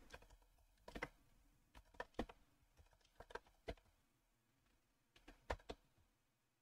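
Faint computer-keyboard typing: about a dozen separate keystrokes at an irregular pace, with short pauses between them.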